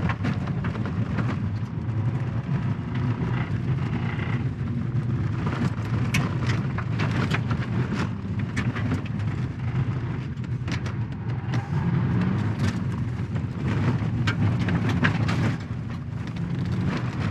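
Mazda 2's 1.5-litre four-cylinder engine running hard on a rallycross run, with irregular sharp clicks and knocks over it throughout. The engine has a rod knock.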